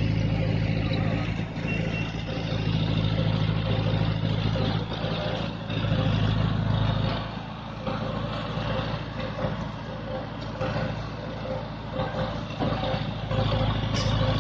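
A heavy vehicle's engine running steadily with a low hum. In the second half a short beep repeats about twice a second, like a reversing alarm.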